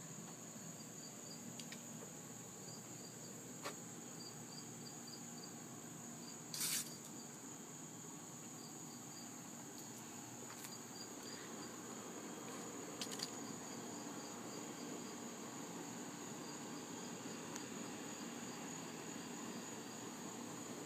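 A steady, high insect chorus with runs of faint, evenly pulsed chirps beneath it. A few brief knocks break in, the loudest about a third of the way through.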